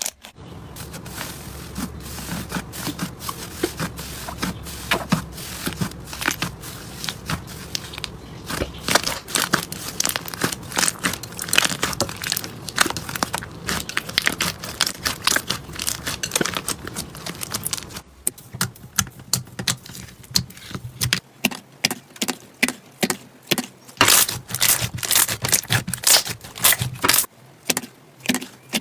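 Slime being squeezed and pressed, giving dense crackling and popping clicks. About eighteen seconds in the sound changes to sharper, more widely spaced pops.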